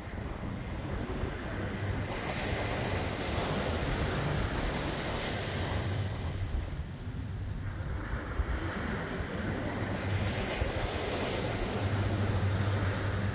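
Ocean surf breaking and washing up on the beach, swelling twice, with wind rumbling on the microphone.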